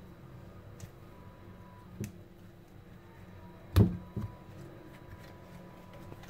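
Handling noise: a couple of light knocks, then one loud thump a little past halfway with a smaller knock just after it, over a low steady room hum.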